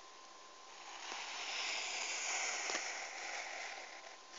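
A pencil drawn along the edge of a plastic set square across paper: a steady scratchy hiss that swells and fades over about three seconds.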